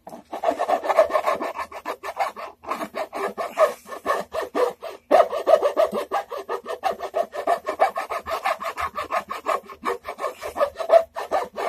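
Hand file rasping back and forth in quick strokes, several a second, against the painted wooden edge of a guitar body, with two short breaks. The edge is being rounded off and the file is cutting through the paint into the wood.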